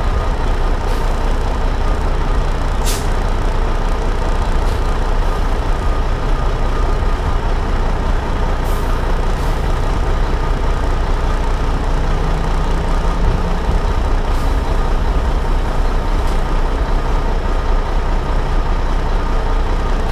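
Heavy truck's diesel engine running steadily as it creeps along behind a semi, with road rumble and several brief air-brake hisses.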